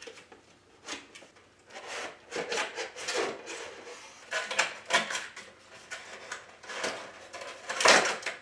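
A cardboard box being opened by hand and a stove fan in its cardboard insert slid out: irregular rustling and scraping of cardboard, the loudest scrape near the end.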